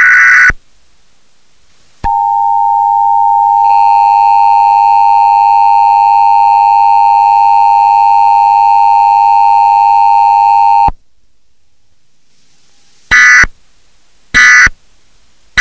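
Emergency Alert System tones: the end of a warbling digital data burst, then a steady two-tone attention signal that thickens with higher tones a second and a half after it starts and cuts off abruptly after about nine seconds. Three short data bursts follow near the end.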